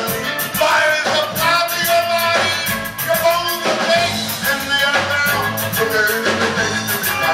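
Live band playing an upbeat rock number with drum kit and bowed violin, and a voice singing over it.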